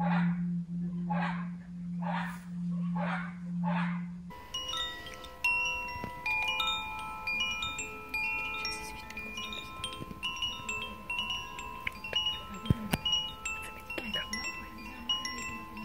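For the first four seconds a singing bowl hums with a slow pulsing, with a swish about once a second as its rim is rubbed. Then a hand-held bamboo-tube chime is swayed by its cord, its tuned rods ringing out many overlapping bell-like notes, with one sharp knock near the end.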